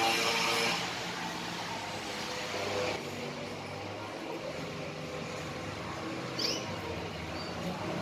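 A canary gives a couple of short, quick chirps about six and a half seconds in, and one brief note soon after, over a steady low background rumble.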